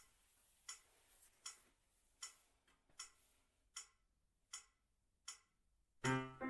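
Clock ticking steadily, about one tick every three-quarters of a second. About six seconds in, a piano comes in.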